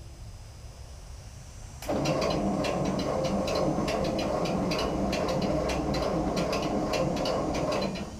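1947 Ford 8N tractor's engine being cranked on the starter, a rhythmic churning that starts about two seconds in and stops abruptly near the end without the engine catching: the tractor will not start.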